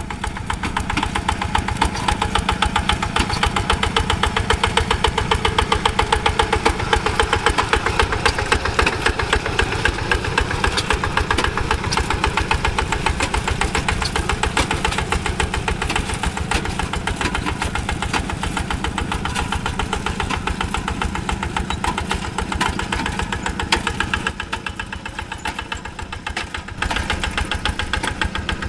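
Single-cylinder Kubota diesel engine of a Quick G1000 Boxer two-wheel hand tractor chugging steadily under load while plowing wet paddy soil, with an even, rapid run of firing knocks. It steps up in loudness near the end.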